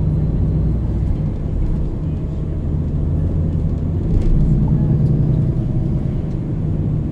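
MAN NL 323 city bus's diesel engine running under way through a ZF Ecolife automatic gearbox. The engine note dips about two seconds in and comes back louder about four seconds in.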